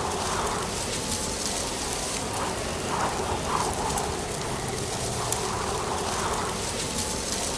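Strong wind through dry autumn leaves: a steady rustling hiss with irregular gusts swelling every second or two and a few sharp crackles.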